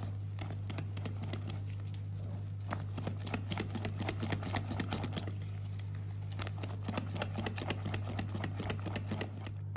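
Wire whisk beating thick cake batter in a glass bowl, its wires clicking against the glass in rapid, irregular taps as the flour is mixed in. A steady low hum runs underneath.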